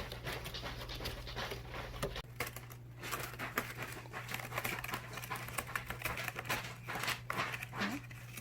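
A cat clawing a worn, holed scratcher: many quick, irregular scratching strokes.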